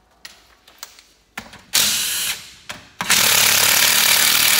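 DeWalt cordless driver backing out 8 mm bolts from an engine side cover: a few light clicks, a short run about one and a half seconds in, then a longer steady run from about three seconds in.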